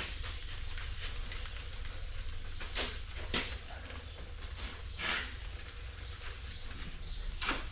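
A few short swishes, about four, of a towel rubbing polish over a stainless steel bulk tank, over a steady low machine hum and faint hiss.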